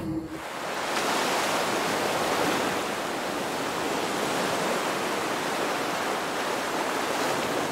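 Steady rushing noise like running water. It swells in over the first second, then holds level.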